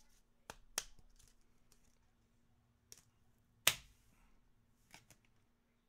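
Faint, sharp clicks and taps of trading cards being handled, about five in all, the loudest a little past the middle.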